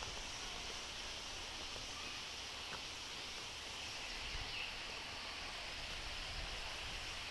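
Steady outdoor hiss with irregular low rumbles on the phone's microphone.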